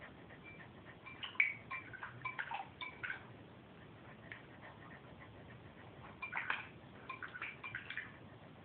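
Beagle-mix puppy splashing water in her water bowl with her muzzle, in two bouts of quick wet splashes and clicks, about a second in and again about six seconds in.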